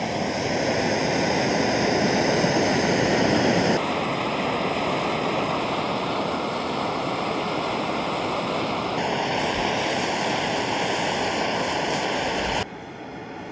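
MAP gas torch burning with a steady rushing hiss as its flame heats a steel glue-in bolt to soften the glue. The level and tone shift abruptly twice, and the sound drops away sharply just before the end.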